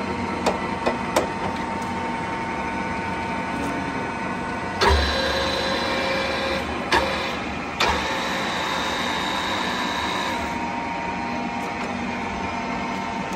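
TOS SU100 engine lathe running with a steady gear hum, and a few lever clicks near the start. About five seconds in, the power compound's feed motor starts with a heavier hum. It cuts out with a clunk some three seconds later, and a higher whine carries on for about two seconds more.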